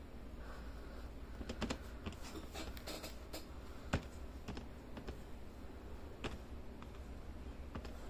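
Light, irregular clicks and taps, like keys being typed: a quick run between about one and a half and four and a half seconds in, with one sharper click near four seconds, then a couple of scattered clicks later, over a steady low hum.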